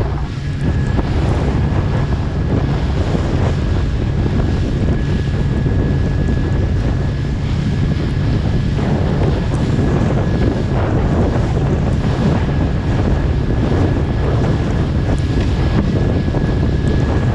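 Wind buffeting the microphone over a small fishing boat's engine running steadily, with a thin steady whine above the low engine drone and the sea washing around the hull.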